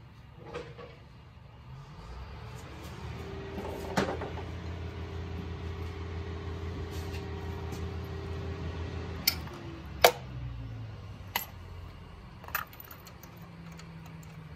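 Sharp metallic clicks and knocks, five of them, the loudest about ten seconds in, as a spark plug socket on a ratchet extension goes down into the spark plug well and onto the plug. A steady low hum starts about two seconds in and stops after about nine seconds.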